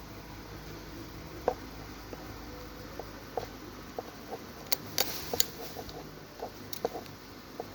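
Scattered light clicks and taps of small parts and tools being handled as a smartphone is taken apart, over a steady low hum.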